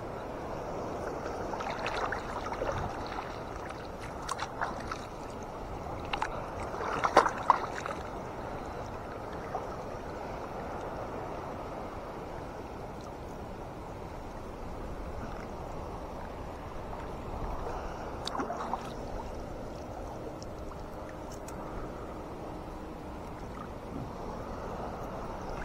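Sea water lapping and sloshing around the fisherman as a gill net is hauled by hand, with a few sharp splashes and drips; the loudest comes about seven seconds in.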